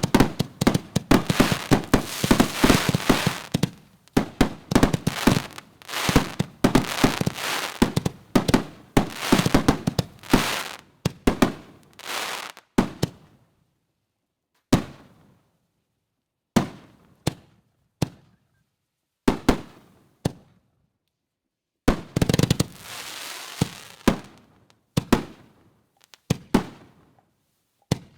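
Aerial firework canister shells going off: a rapid barrage of bangs for roughly the first twelve seconds, then single bangs about a second or two apart, a second dense cluster a little past twenty seconds, and scattered bangs to the end.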